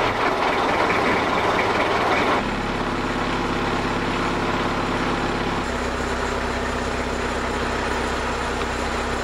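A boat's inboard engine runs steadily, heard from close by in the hull. Its note changes abruptly twice, about two and a half seconds in and again near six seconds.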